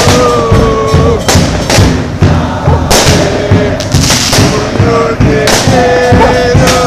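Football supporters' crowd chanting over pounding bass drums, with loud firecracker bangs going off several times.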